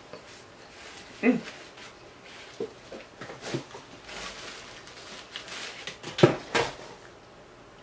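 Eating sounds: short mouth noises and smacks while chewing a burger, with a paper napkin rustling around the middle. The loudest are two quick mouth sounds a little after six seconds in.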